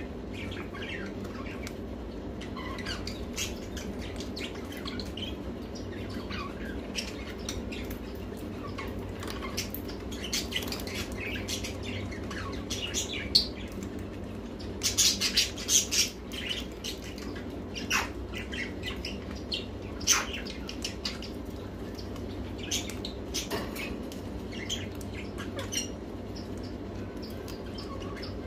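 Caged ringneck parakeet and cockatiel giving short, scattered chirps and squawks, with a louder run of squawks about halfway through and a sharp click just before it. A steady low hum sits underneath.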